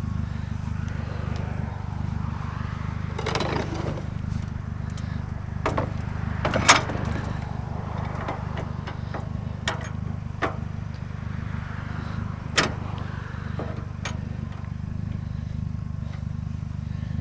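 Scattered metal clinks and knocks as scrap metal is taken apart by hand, the loudest about six and a half seconds in. Under them runs a steady low engine rumble.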